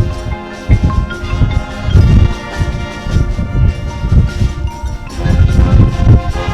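High school marching band playing its show: sustained wind chords over low drum hits, swelling louder near the end.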